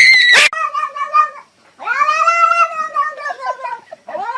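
A cat yowling: three long, drawn-out calls, each rising and then falling in pitch. It is preceded by a louder, shrill, steady cry that cuts off abruptly about half a second in.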